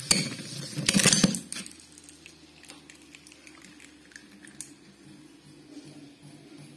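Homemade Beyblade with a flat attack tip skidding and clattering loudly across a cardboard-lined stadium just after launch, then settling after about a second and a half into a steady low spinning hum with faint ticks.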